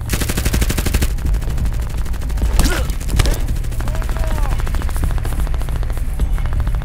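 Rapid automatic gunfire sound effect: a dense, loud burst in the first second, then continuing fire through the rest.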